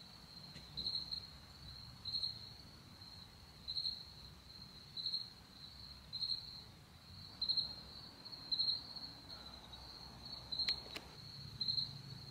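Crickets chirping: a steady high trill with a louder chirp about once a second. A single sharp click comes near the end.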